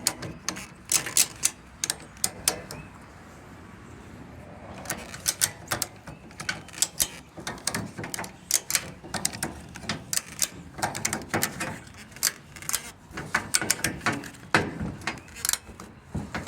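Ratchet strap buckle being cranked, its pawl clicking sharply in irregular bursts with a pause of about two seconds near the start, as the strap pulls a wrench round to turn a stuck nut.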